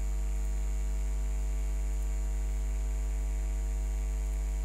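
Steady low electrical mains hum with a ladder of even overtones, and a faint high whine above it, unchanging throughout.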